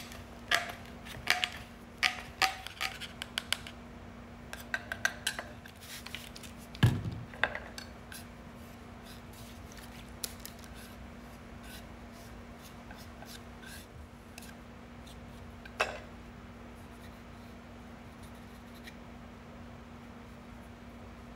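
Clinks and scrapes from prying open a tin of water putty and mixing the powder with a metal putty knife on a wooden board, mostly in the first eight seconds. A heavier knock comes about seven seconds in and another near sixteen, over a steady low hum.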